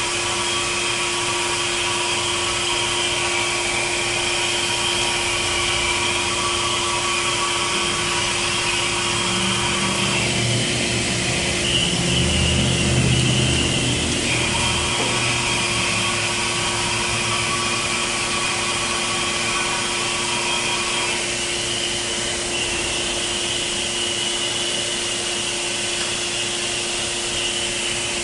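Supplied-air pressure respirator hissing a steady stream of air into its half-mask, with a steady hum from the air supply. About ten seconds in, the sound turns lower and louder for a few seconds as the mask is pressed to the face and adjusted, then settles back.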